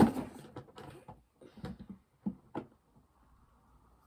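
Fidget toys being handled: a sharp knock at the start, then a few smaller clicks and taps over the next two and a half seconds.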